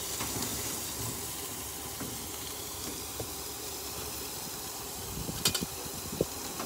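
Chopped green onions sizzling in oil in a wok on an induction cooktop: a steady frying hiss, with a few short clicks a little after five seconds in.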